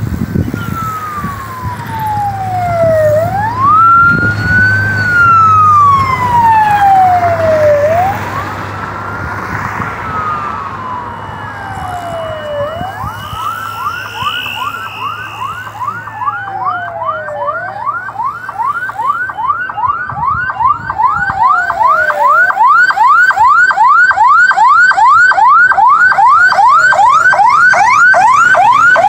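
Police vehicle siren sounding loudly in a slow rising-and-falling wail. About halfway through, a fast yelp joins it and takes over by the end.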